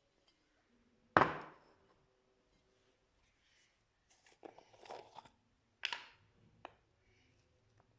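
Slime being worked by hand, making a few sharp pops and slaps with softer crackling between. There is a loud sharp one about a second in that fades over half a second, a cluster of crackles around four to five seconds in, another sharp pop just before six seconds and a small click soon after.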